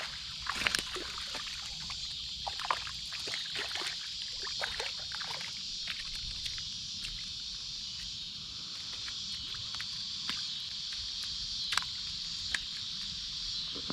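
A small hooked bass splashing and thrashing at the water's surface as it is reeled in and landed, with a string of short splashes and clicks in the first half that thin out later. A steady high-pitched drone runs underneath.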